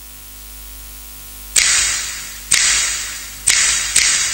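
Loudspeaker hiss and mains hum, then, about a second and a half in, sharp noisy hits come over the PA about once a second, each dying away. These are the opening hits of the recorded dance track, just before the song starts.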